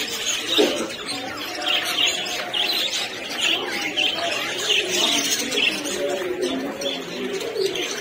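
A flock of caged budgerigars chirping and chattering together: a dense, unbroken mix of short high chirps over lower warbling calls.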